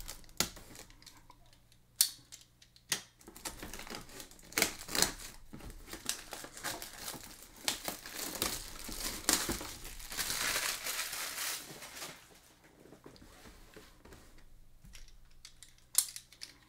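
Plastic shrink wrap being slit and torn off a cardboard box, crinkling, with a few sharp snaps in the first seconds. The crinkling is thickest in the middle and dies down near the end.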